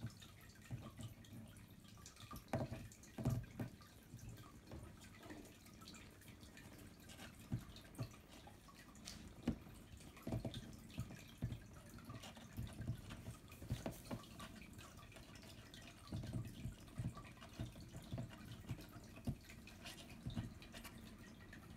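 Siberian kittens suckling at their mother: faint, irregular wet smacks and little clicks, scattered through the whole stretch.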